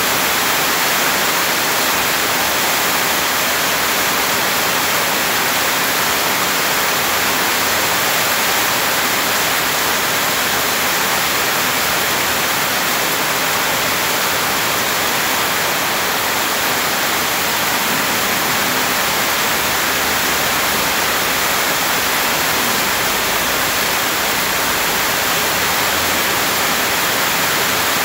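Heavy rain falling steadily on wet grass and mud, with a stream of rainwater pouring down and splashing into the grass.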